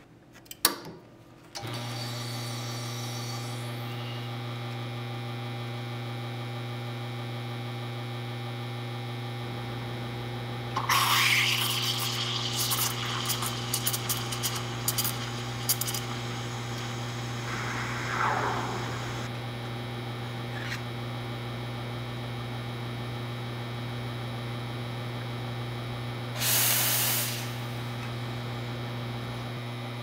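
La Marzocco Linea Mini espresso machine's pump running with a steady hum through an espresso shot, starting about two seconds in and cutting off near the end. Loud hissing bursts of steam from the steam wand, with crackling, come about a third of the way in and again shortly before the end.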